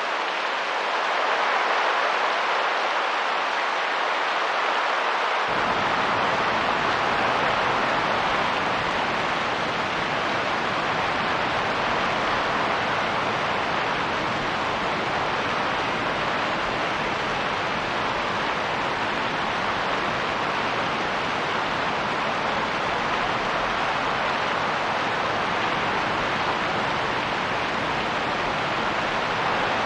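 Rain and wind making a steady, even hiss; a few seconds in, a deeper rumble joins in and stays.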